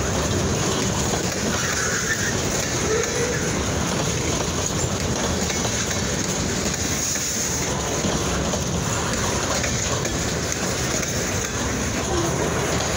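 Freight train rolling past: a steady rumble and clatter of wheels on the rails.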